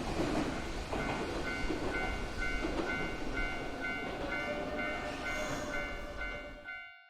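A train passing with rumbling rail noise while a railway level-crossing bell rings a steady two-tone ding about twice a second. The train noise cuts off sharply near the end, leaving the crossing bell ringing.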